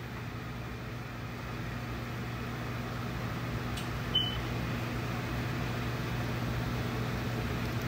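Room air conditioner running with a steady hum. A brief high ping sounds once about four seconds in.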